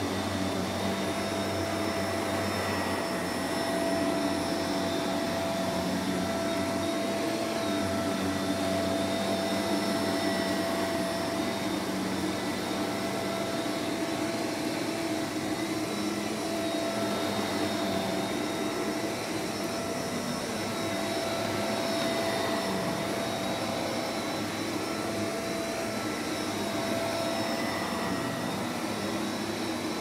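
Shark Navigator upright vacuum cleaner running steadily as its floor head is pushed over thick carpet, a continuous airflow rush with a steady motor whine on top, the loudness rising and falling slightly.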